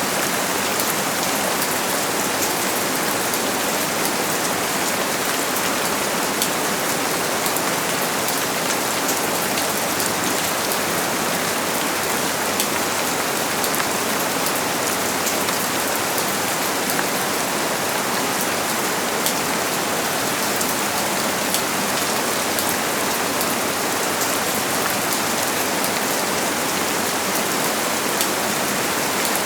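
Steady rain falling on a surface, an even hiss of water with many small droplet ticks.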